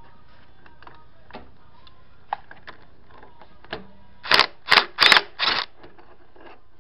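Scattered light metallic clicks of hand tools working on an ATV engine, then four short, loud bursts of metal rattling about two-thirds of the way in.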